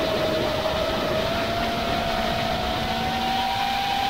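FPV quadcopter's motors and propellers whining steadily as it flies, recorded on the onboard action camera. The whine sags a little in pitch about half a second in and then climbs slowly, over a rush of wind noise.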